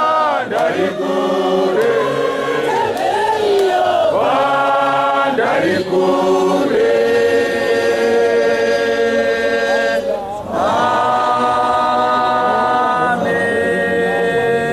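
Church choir, mostly women's voices, singing a Shona chorus in long held notes. There is a brief pause about ten seconds in before the singing picks up again.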